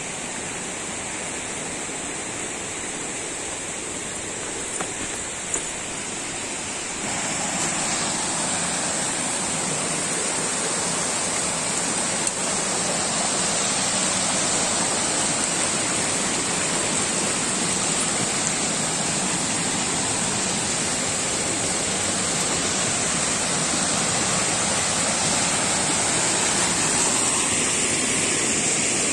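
Rushing water of a rocky stream tumbling over small cascades, growing louder about seven seconds in, with a steady high hiss above it.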